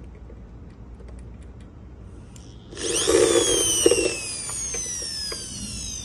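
Cordless drill-driver driving a screw into a door lock's mortise faceplate. About three seconds in its motor whines up and runs for just over a second, then the pitch slides down as the motor spins down.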